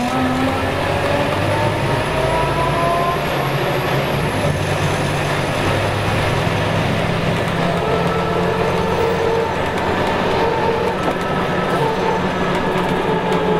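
Scania K280UB city bus under way, heard from inside the passenger cabin: its rear-mounted Scania DC9 9.3-litre inline five-cylinder turbo diesel and ZF Ecomat six-speed automatic gearbox running steadily, with road noise. A whine climbs in pitch over the first few seconds.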